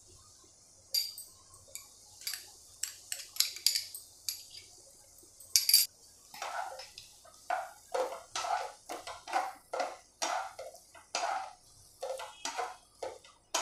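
A spatula stirring potatoes and peas in a non-stick frying pan, with repeated scraping strokes about twice a second starting around six seconds in. Before that come a few light, high clinks and taps.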